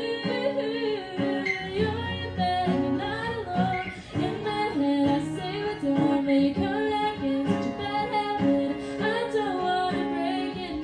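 A woman singing an original song over acoustic guitar, performed live.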